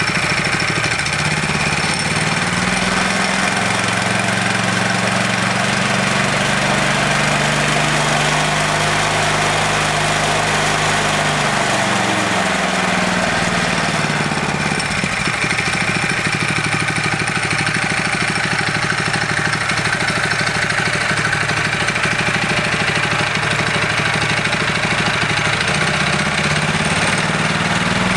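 Small single-cylinder engine running on a test stand, driving a MAX-TORQUE torque converter belt drive. It revs up about a second in, holds the higher speed, drops back to idle about halfway through, and picks up again near the end.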